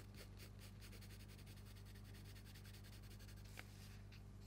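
Faint scratching of a pencil drawing on paper, over a low steady hum.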